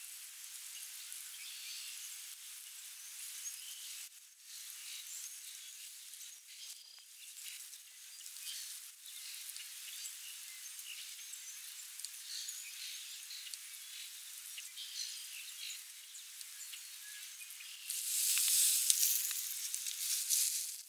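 Faint outdoor ambience: a steady hiss with small scattered sounds, and a louder rushing noise lasting about two seconds near the end.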